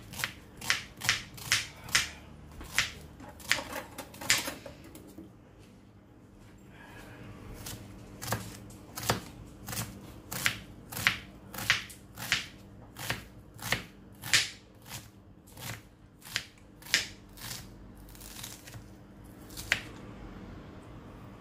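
A run of sharp clicks or taps, roughly two a second, over a steady low hum. They stop for about three seconds a third of the way in, then resume.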